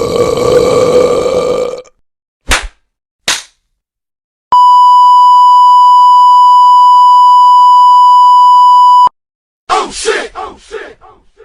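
A run of stock comedy sound effects. It opens with a brief pitched sound and two short clicks, then a loud, steady single-tone beep of about four and a half seconds that starts and stops abruptly, like a censor bleep. A brief voice follows near the end.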